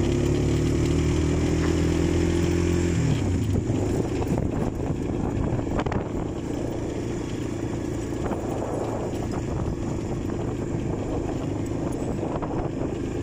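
Suzuki ATV engine running while riding: a steady engine note that rises slightly, then drops away about three seconds in, leaving a rougher, noisier running sound.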